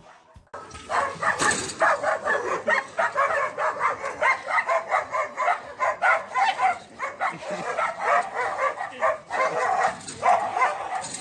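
A dog barking over and over in quick succession, several barks a second, starting about half a second in.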